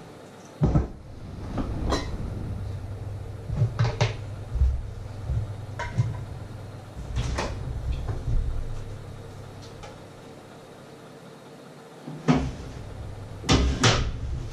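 Irregular knocks and clunks of kitchen things being handled off to the side, about eight in all, over a steady low hum that drops out for a couple of seconds late on.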